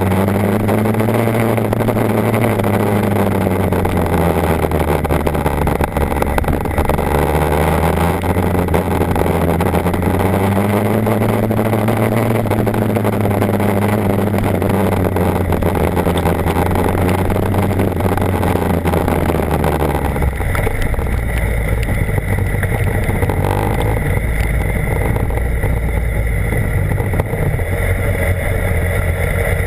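BMW HP4 motorcycle's inline-four engine running while under way, its note rising and falling gently twice, over a steady rushing noise; the sound changes about twenty seconds in, with the highs dropping and a deeper low rumble.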